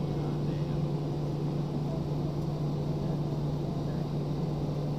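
Cabin noise of an Airbus A320-family airliner taxiing: the jet engines running at low thrust give a steady, even hum with a constant low drone under it.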